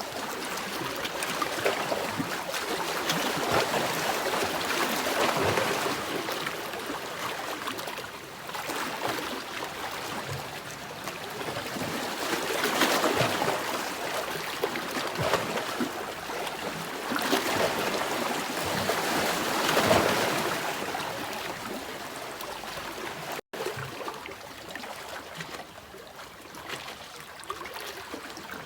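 Sea waves washing onto a shore, the surf swelling and easing off every several seconds, with a split-second break in the sound about three-quarters of the way through.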